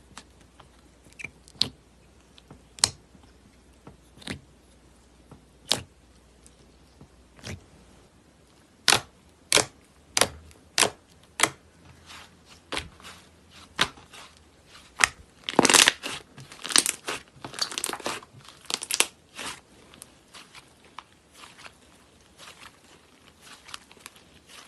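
Slime being poked and squeezed by hand, giving sharp, separate clicks and pops with a dense crackling stretch about two-thirds of the way through.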